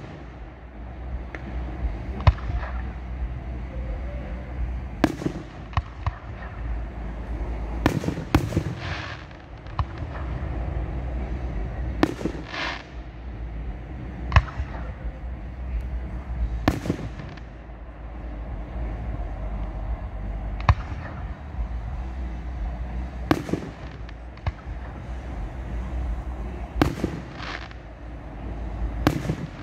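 Aerial fireworks shells going off in a display: sharp bangs every two to four seconds, about a dozen in all, over a steady low rumble.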